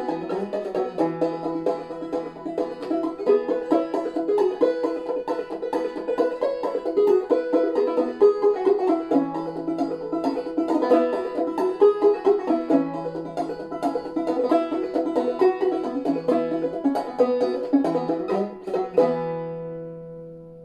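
Five-string banjo played clawhammer style in Double C tuning capoed at the fourth fret, a steady instrumental run of an old-time tune. About nineteen seconds in, a final chord is struck and left to ring, fading away.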